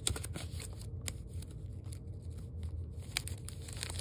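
Plastic card holders and sleeved binder pages being handled close to the microphone: scattered small clicks and crinkly rustles over a low handling rumble.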